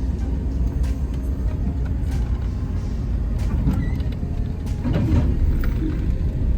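Road noise inside a moving vehicle: a steady low rumble with a few light knocks and rattles.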